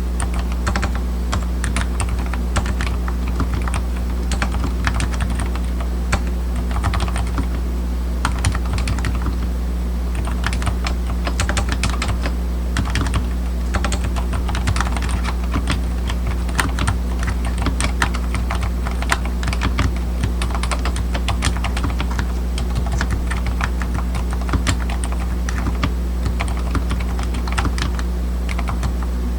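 Typing on a DURGOD K610W mechanical keyboard with low-noise (silent) brown switches: a steady stream of quick key presses over a steady low hum.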